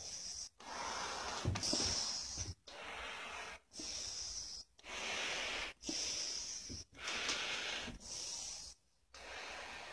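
A person breathing heavily in and out through a face mask, with a hissing rush of air on each breath, about one breath every second.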